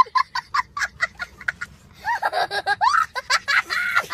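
A small child laughing hard: a quick run of short laugh bursts, then higher, longer laughs that rise and fall in pitch from about two seconds in.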